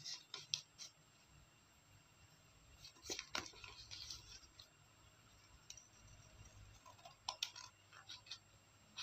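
Scissors snipping through paper: short, crisp snips in small clusters with quiet gaps between.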